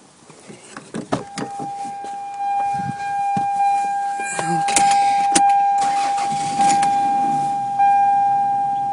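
Car's steady electronic warning buzzer sounding from about a second in, with the door open and the key in, over clicks and knocks of someone getting into the driver's seat.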